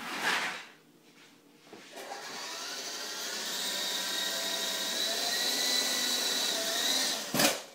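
A small RC helicopter's motor and rotor spin up about two seconds in, giving a steady whine with a high tone that creeps slightly upward. The whine stops shortly before the end, followed by one sharp knock.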